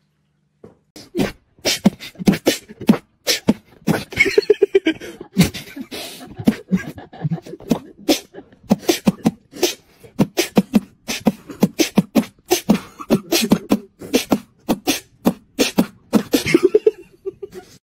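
A person beatboxing: a fast, uneven run of sharp mouth-made percussive hits and pops mixed with short voiced sounds, starting just under a second in.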